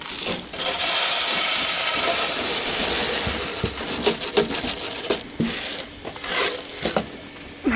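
Rabbit feed pellets poured from a plastic container into a galvanized J feeder: a steady rattling hiss for about three seconds, then scattered clicks and rattles of pellets.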